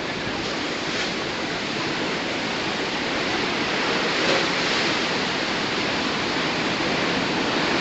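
Steady rushing noise of storm wind and water during Tropical Storm Sandy, even throughout, with no distinct knocks or calls.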